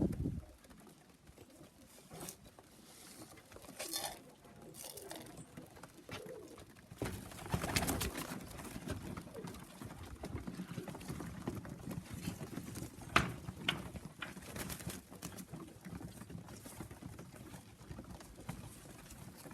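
Racing pigeons cooing, with a sharp tap about thirteen seconds in.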